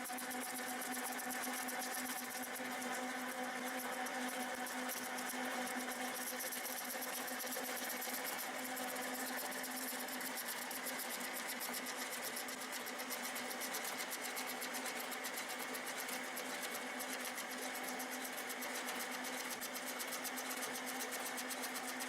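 Manual centre lathe running steadily during a knurling operation, with a hum and a higher whine that hold at one pitch.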